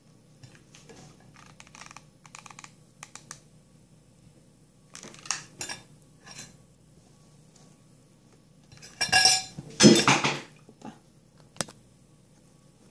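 Hand-crafting handling noise: light rustles and ticks as stiff white flower petals are worked by hand, then a louder clatter of hard objects on the table about nine to ten and a half seconds in, with one last sharp click after it.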